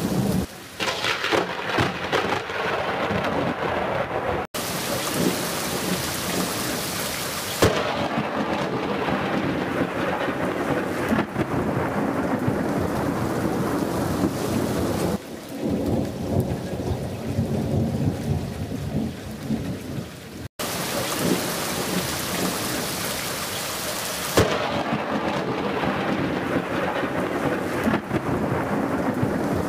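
Thunderstorm soundtrack: steady rain with rumbles and cracks of thunder. The sound cuts out for an instant twice.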